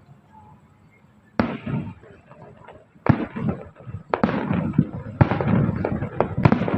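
Fireworks bursting: a sharp bang about a second and a half in, then four more bangs coming closer together, each trailing off into crackling and rumble.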